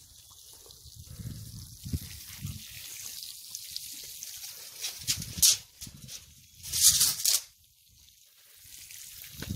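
Water sprinkling from a plastic watering can's rose onto loose soil: a steady high hiss, swelling louder twice, about five and seven seconds in, with a few dull knocks of the can being handled.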